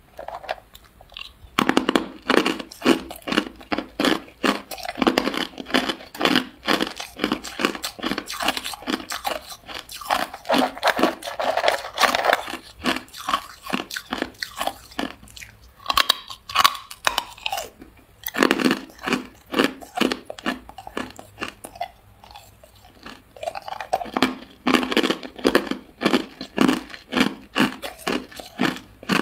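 Hard clear ice cubes being bitten and chewed close to the microphone: rapid runs of loud, sharp crunches and cracks, pausing briefly now and then before the chewing picks up again.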